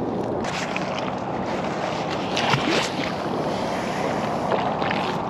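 Wind rushing across the microphone over open water, a steady noise, with a brief louder rush about two and a half seconds in.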